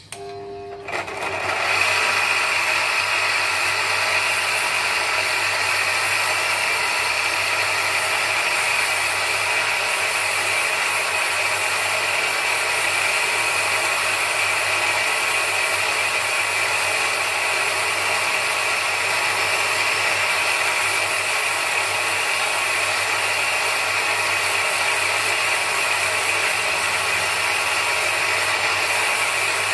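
Bench grinder fitted with a sandpaper wheel, its motor coming up to speed in the first couple of seconds and then running steadily with a low hum, while a bacan gemstone cabochon on a dop stick is held against the abrasive and sanded to a polish.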